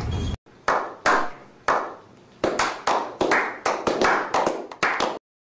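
A small group of people clapping: a few slow, separate claps that quicken into faster, uneven applause, then stop abruptly.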